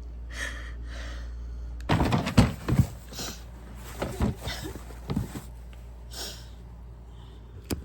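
A woman crying: gasping, sniffling sobs, with a cluster of knocks and rustling about two seconds in.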